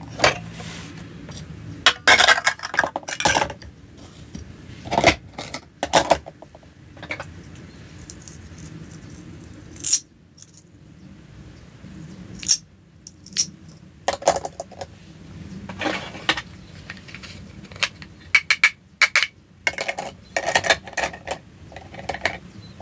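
Hard plastic toy food and toy dishes being handled and set down: irregular clusters of short clacks and clatters with quiet gaps between them.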